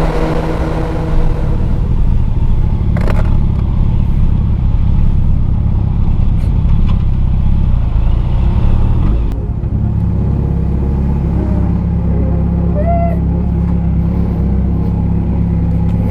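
Motorcycle engine running with wind rushing past while riding. About nine seconds in, the wind noise drops away and the engine carries on at a steady, lower running note.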